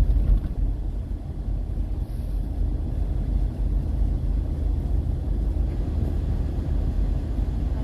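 Steady low rumble of a car driving, engine and road noise with no distinct events.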